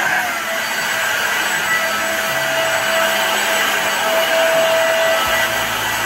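Mondial Turbo Cycle AP-36 corded stick vacuum cleaner running steadily, a constant motor whine as it vacuums the sofa.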